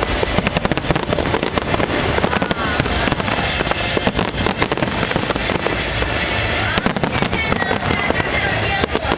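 Fireworks display going off continuously: a dense run of crackling and popping explosions, with music playing underneath.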